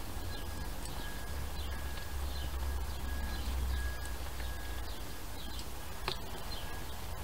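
Outdoor garden ambience: small birds chirping now and then over a low wind rumble, with one brief click about six seconds in.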